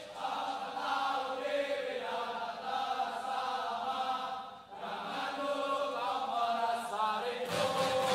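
A group of male cadets singing a song together in unison.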